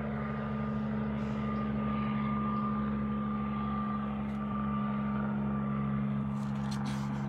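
A steady mechanical hum with a faint high whine held at one pitch.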